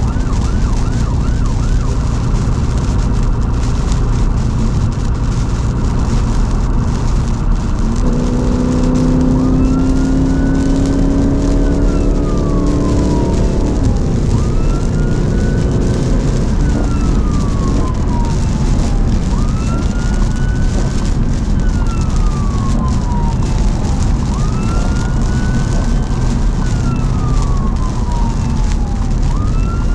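Emergency vehicle siren heard from inside the response car. It opens with a fast yelp, then settles into a slow wail that rises and falls about every five seconds. Under it runs steady road and tyre noise on a wet road, and around the middle a lower engine note climbs slowly as the car accelerates.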